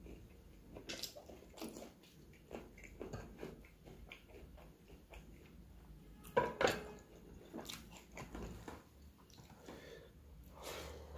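Close-miked eating sounds: chewing and wet mouth sounds with scattered small clicks as fingers work rice and curry, and a louder cluster of sharp sounds about six and a half seconds in.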